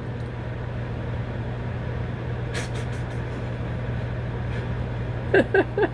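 Microwave oven running with a steady low hum, with a brief click about two and a half seconds in and a short voice sound near the end.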